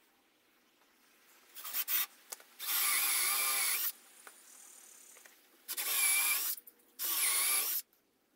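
Electric drill running in three short bursts of about a second each, its motor whine wavering in pitch as it works, with a few clicks just before the first burst.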